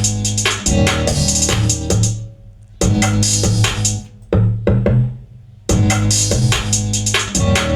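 A trap-amapiano beat from a drum machine and synthesizer, with heavy bass notes and bright hi-hats. It plays in short stretches of a second or two that stop abruptly and restart several times, as a producer auditions a looped section of the beat.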